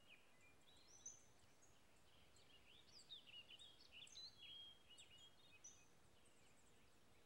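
Faint outdoor ambience with small songbirds calling: many short, high chirps and whistling notes that slide up and down, busiest in the middle.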